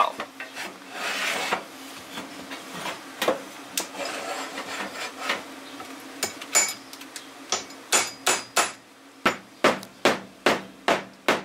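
Hammer striking the end of a flooring pull bar to draw luxury vinyl plank flooring tight at the wall edge: scattered knocks at first, then a quick, even run of strikes about three a second in the second half.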